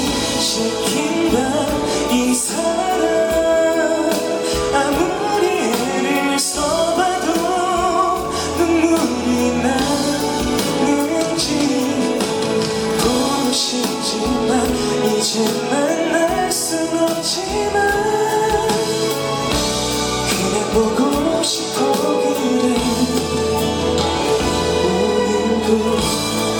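A slow pop ballad performed live: singing over instrumental backing.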